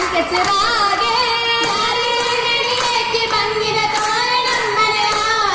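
Girls' voices singing an Oppana song, the Mappila song that accompanies the dance, with long held notes ornamented by sliding turns.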